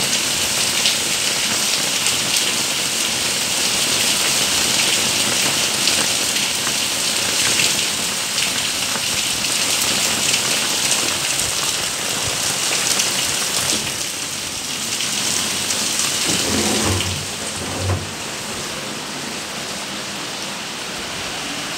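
Heavy rain pouring down in a steady, loud hiss full of drop patter. About seventeen seconds in, there are a couple of low thumps and the rain becomes quieter.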